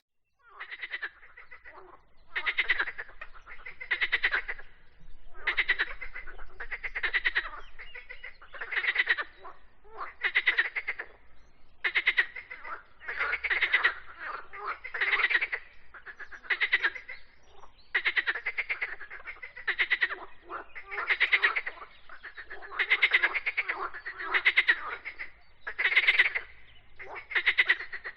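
Frogs calling: a run of short pulsed trills, one every second or two, some overlapping as several frogs call together.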